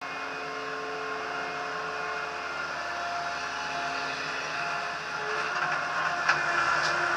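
TCM 706 skid steer loader's engine running steadily as the machine moves, its pitch shifting a little a couple of times, with two sharp clicks near the end.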